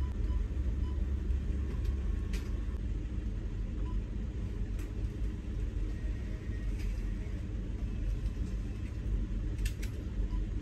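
Truck engine idling, a steady low rumble heard from inside the cab, with a few faint ticks.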